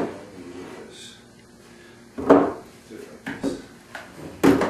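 Pine loveseat boards knocking and clattering as they are handled and fitted together, a few sharp wooden knocks, the loudest about two seconds in and near the end.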